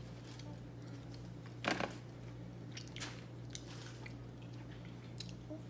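A person eating close to the microphone: chewing with a few short, crisp crunching bites, the loudest about a second and a half in, over a steady low hum.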